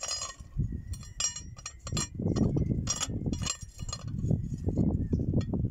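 Toothed steel discs clinking against each other and the cast hub of a HAMM 311 roller's drive housing as they are fitted by hand. The clinks come several times and ring briefly, mixed with duller bumps of handling.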